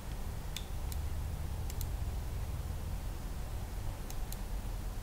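Quiet room tone with a steady low hum, broken by a handful of faint short clicks: a pair about a second in and a few more around four seconds.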